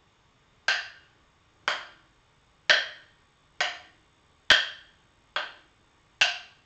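Two short wooden sticks knocked together in a steady rhythm: seven sharp, dry clacks about a second apart, coming a little faster toward the end.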